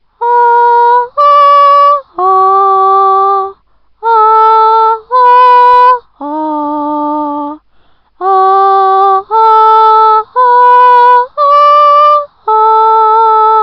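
A solo voice sings a slow, simple melody of about eleven held notes, each a second or so long, with short breaks between them. This is the voice recording that is to be turned into piano and guitar sound.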